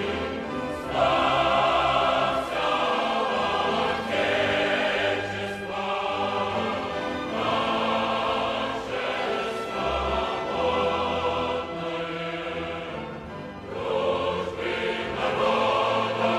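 Background music: a choir singing in sustained phrases over instrumental accompaniment.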